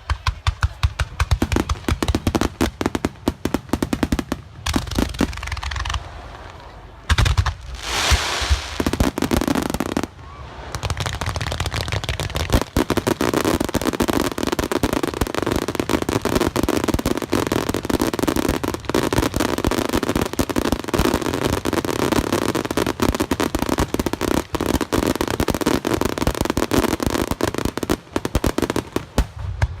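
Aerial firework shells bursting at close range in a rapid barrage: dense, overlapping bangs and crackles, with a short lull about six seconds in.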